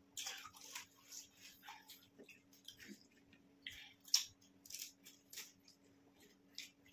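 Mouth sounds of people eating pani puri: crisp puri shells crunched and chewed with the spiced water, in short irregular bursts, the loudest about four seconds in. A faint steady low hum runs underneath.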